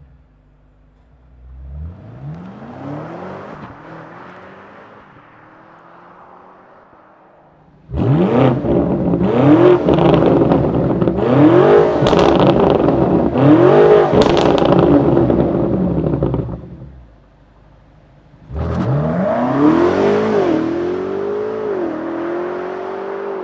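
BMW G90 M5's twin-turbo V8 through an Akrapovič titanium exhaust, revving hard. In the middle stretch the pitch rises and falls about five times, with crackles, and near the end it pulls up again and holds a high, steady note.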